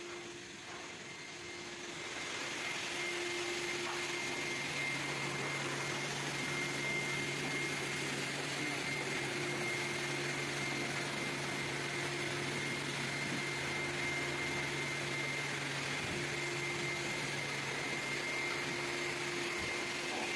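Vacuum cleaner running steadily with a constant high whine, getting louder about two seconds in.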